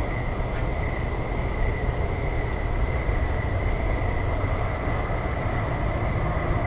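Steady background rumble and hiss picked up by a doorbell camera's microphone, with a thin, steady high tone over it.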